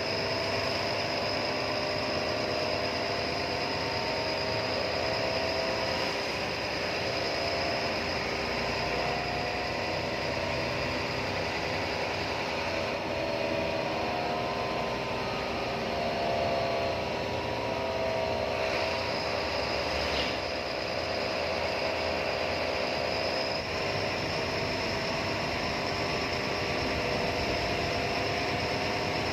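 A bus running steadily on the road: engine and road noise with a whine that drifts slightly in pitch.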